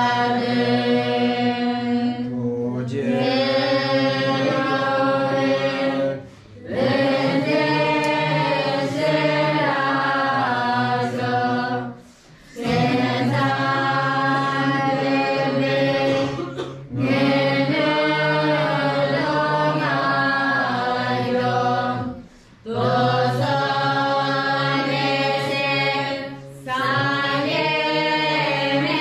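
A group of voices singing a Tibetan devotional birthday hymn together, in sung phrases broken by short pauses every four to six seconds.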